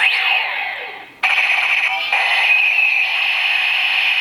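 DX Kamen Rider Fourze driver toy playing its electronic sound effects through its small speaker, triggered by an inserted Legend Rider switch. A falling swoosh comes first, then about a second in a steady bright electronic tone that holds.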